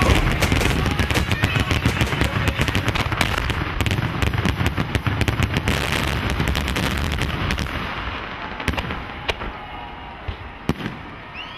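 Fireworks barrage: a dense, rapid string of bangs and crackles over a continuous rumble, thinning after about eight seconds to a few scattered reports as it dies away.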